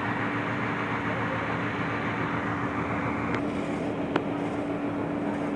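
Heavy road-construction machinery running with a steady engine drone, with a couple of sharp clicks or knocks about three and a half and four seconds in.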